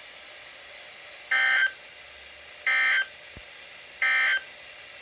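Emergency Alert System end-of-message signal on NOAA Weather Radio: three short bursts of digital data tones, a little over a second apart, over faint radio hiss. They mark the end of the required weekly test message.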